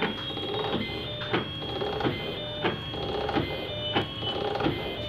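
Automatic paint tinting machine running before it dispenses colorant: a steady high whine with a sharp click about every two-thirds of a second.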